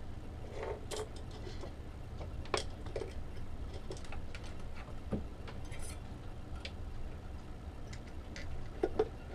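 Scattered light clicks and taps of a soldering iron and pliers being handled and set down on a workbench, the loudest a quick pair near the end, over a steady low hum.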